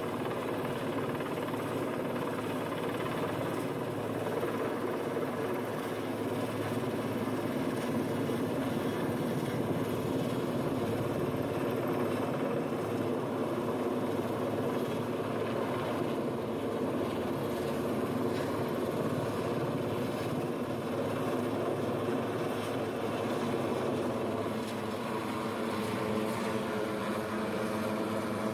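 Helicopter hovering overhead while lifting a wooden utility pole on a long cable line: a loud, steady rotor and engine drone that holds even throughout.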